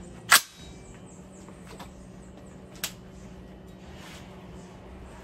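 A single sharp metallic clack from a Ruger AR-556 MPR rifle being handled, followed about two and a half seconds later by a fainter click.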